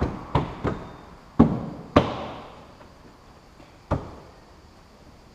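Hand-fitted plastic boot trim of a Nissan Qashqai being knocked into its clips: five sharp knocks at uneven spacing over the first four seconds, the third and fourth the loudest.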